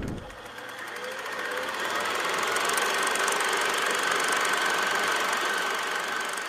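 Outro sound effect for the closing logo animation: a long, noisy swell with a fast rattle and a faint high whistling tone. It builds over the first couple of seconds, holds, and begins to fade near the end.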